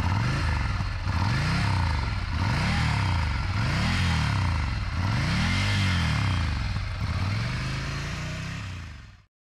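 2017 Ducati Scrambler Cafe Racer's 803 cc air-cooled L-twin, standing still and revved in about five throttle blips. Each blip rises in pitch and falls back to idle. The sound dies away near the end.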